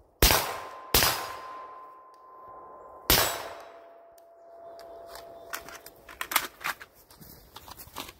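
Three shots from a suppressed AR-15-pattern carbine fitted with a YHM Turbo K suppressor: two in quick succession, then a third about two seconds later. A ringing tone hangs after the last two shots. Smaller clicks and rattles of the rifle being handled follow.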